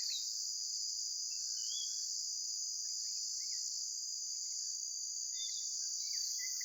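Steady high-pitched dusk chorus of insects, with short bird chirps and call notes scattered over it, coming thicker near the end.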